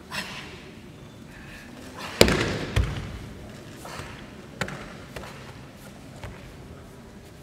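A body landing hard on a martial-arts mat as a karateka is taken down, about two seconds in, followed half a second later by a second heavy thud, then a few lighter knocks.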